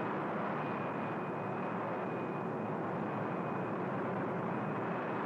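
Steady drone of an aircraft's engines heard from inside the cockpit: an even rushing noise with a faint thin whine above it.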